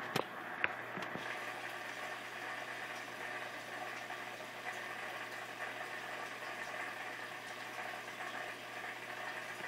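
Steady bubbling, rushing water of a reef aquarium's circulation. A couple of sharp clicks come in the first second.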